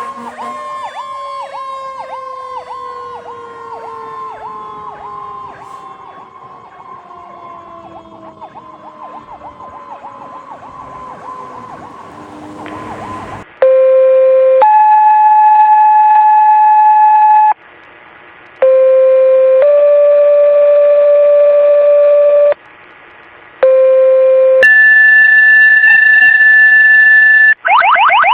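Fire engine siren fading as it winds down, its pitch slowly falling, with a faster pulsing siren tone over it. About halfway through, loud fire-dispatch alert tones come from a radio scanner. There are three pairs of steady tones, each a short low tone followed by a longer higher one, and then a warbling alert tone near the end.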